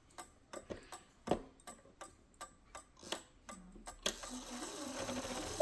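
Pendulum movement of an 8-day cuckoo mantel clock, driven by both a mainspring and a fusee, ticking steadily at about three ticks a second. A louder rustling noise comes in near the end.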